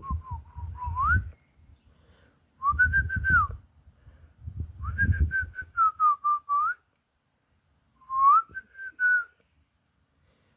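A person whistling a call to summon birds: four short phrases, each gliding up and down, with pauses between them.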